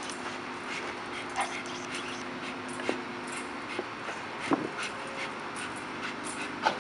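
American bully dogs straining on a hanging tug rope, giving short whines and grunts every second or so, the loudest about halfway through and another near the end, over a steady low hum.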